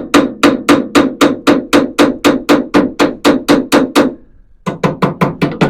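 Rapid hammer blows on a VW dune buggy's steering track rod, about three or four a second with a short metallic ring to each, trying to knock a seized joint loose. There is a brief pause about four seconds in, then the blows resume a little faster. The part does not free up.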